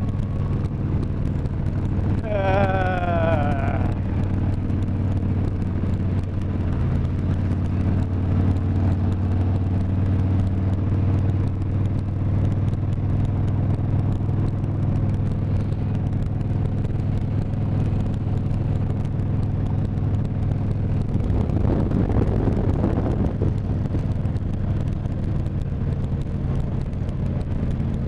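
Harley-Davidson touring motorcycle's V-twin engine running steadily at highway cruising speed, with wind and road noise. A brief warbling tone sounds about two seconds in, and a swell of rushing noise comes near the end.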